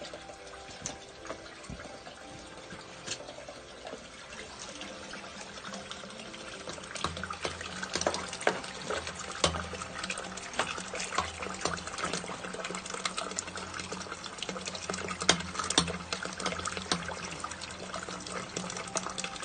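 Water running and trickling through a blocked sewer drain chamber. From about seven seconds in it grows louder, with frequent sharp clicks and splashes as a metal rod is worked through the sludge of wet wipes and cooking fat.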